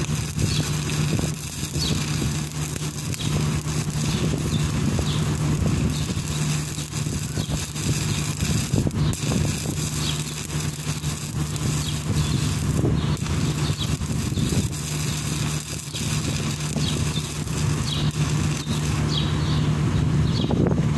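Stick welding arc crackling and sizzling over a steady low machine hum, with a few brief breaks in the crackle. The arc stops near the end while the hum runs on.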